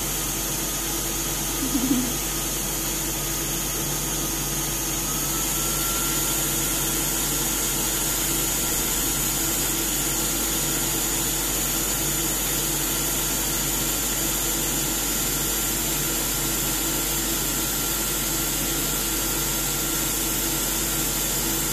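Skin air cooling machine running steadily, blowing chilled air at about minus six to minus eight degrees Celsius out of its braided hose, with a steady hum. A faint higher tone in the noise rises a little and the sound grows slightly louder about five seconds in.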